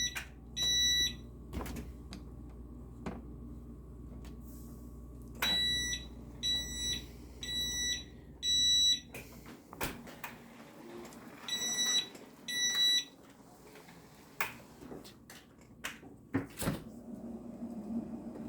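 Refrigerator door-ajar alarm beeping, a high electronic beep about once a second in short runs: twice, then four times, then twice more, sounding because the fridge door is held open. A low steady hum cuts off about halfway through, and a few sharp knocks follow.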